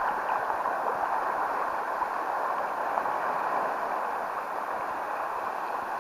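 Steady rush of sea water washing around the rocks, picked up by a camera held at the water's surface.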